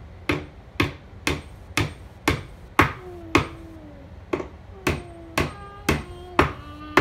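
Claw hammer tapping nails into a dresser's back panel in an even rhythm, about two blows a second.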